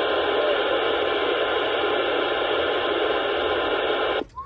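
Steady static hiss from a CB radio's speaker on lower sideband, between voice transmissions, cutting off abruptly about four seconds in.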